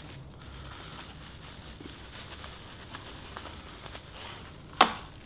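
Plastic bubble wrap crinkling and rustling as it is unwrapped by hand, with small ticks throughout and one sharp click near the end.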